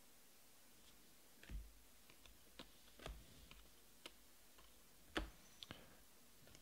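Faint, irregular ticks and clicks of Panini Prizm trading cards being slid off a stack in the hands one after another. The sharpest tick comes about five seconds in.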